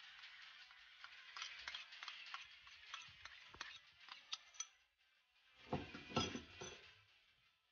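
A spoon scraping tomato paste out of a small bowl onto raw sturgeon pieces in a plastic bowl: a run of light scrapes and clicks, then a louder burst of scraping and knocking about six seconds in.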